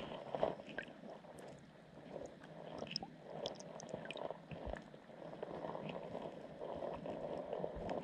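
Muffled underwater wash of shallow seawater surging in a rock pool, heard with the microphone under water, swelling and easing every few seconds, with scattered faint clicks and ticks.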